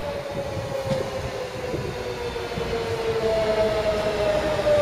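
Daewoo-built diesel multiple-unit train running on the line, its drive whine slowly falling in pitch over a steady rumble, growing louder near the end.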